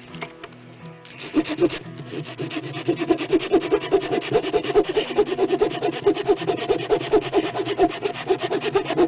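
Hand saw cutting a thin dead tree trunk about 2 inches thick, fast back-and-forth rasping strokes, about four or five a second, starting about a second in.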